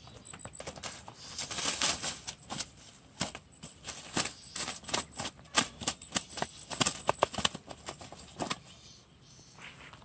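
A rapid, irregular run of clicks and rattles lasting most of the clip, dying away about a second and a half before the end.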